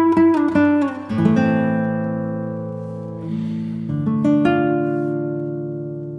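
Background music on acoustic guitar: quick plucked notes, then chords that ring out and slowly fade, with new chords struck about a second in and again near four seconds.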